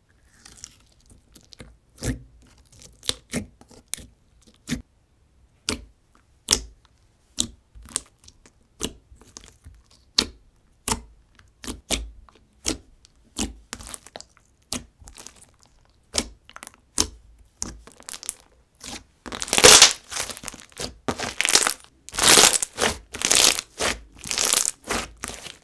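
Thick avalanche slime poked and squeezed by fingers, giving sharp sticky clicks and pops about once or twice a second. About three-quarters of the way through it turns to louder, denser crackling as the slime is pressed flat and folded under the palm.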